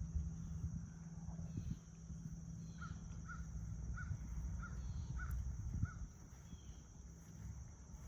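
A bird calling six short, evenly spaced times, about two calls a second, over a steady low rumble.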